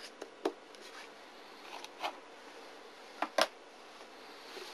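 Felt-tip marker pen writing briefly on paper, then a few light clicks and taps of the pen and paper being handled, the sharpest about three and a half seconds in, over faint hiss.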